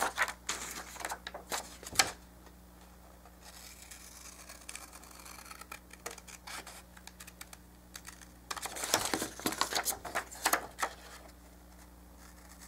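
Scissors snipping printed paper and the paper rustling as it is handled: a run of sharp snips and rustles in the first two seconds, a quieter stretch, then another run about nine to eleven seconds in.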